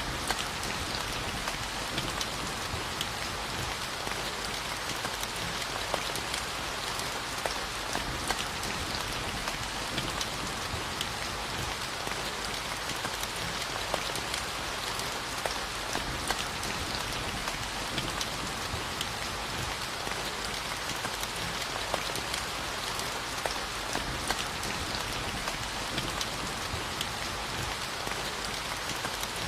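Steady rainfall, with a constant hiss of rain and many small, scattered drop ticks on a surface.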